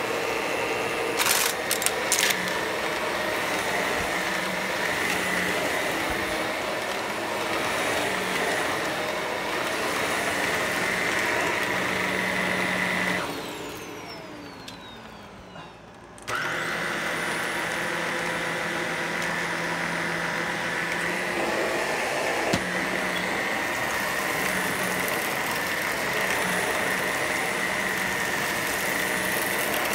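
Shark Professional Lift-Away upright vacuum running with a steady motor whine, with a few sharp clicks near the start. About halfway through, the motor winds down with falling pitch. About three seconds later it starts up again abruptly and runs on.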